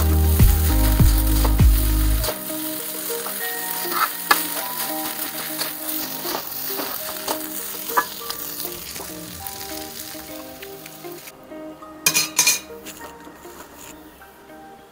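Fried rice sizzling in a wok, with a spatula scraping and tapping the pan as it is stirred. The sizzle fades, stops about eleven seconds in, and a few metal clatters follow as the wok is lifted.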